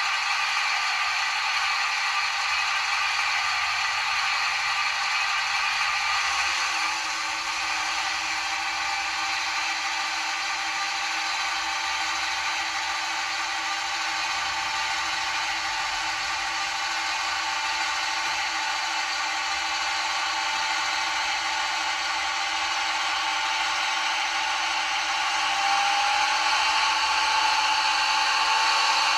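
Model locomotive's DCC sound decoder playing a Class 55 Deltic's Napier two-stroke diesel engine sound through its small onboard speaker, a steady thin mechanical drone with little bass. The engine note changes and drops slightly about a quarter of the way in, and near the end a rising whine comes in as it grows louder.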